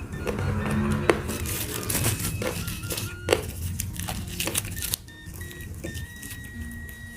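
A person chewing and crunching food close to the microphone, with many sharp crunches and clicks, busier in the first half.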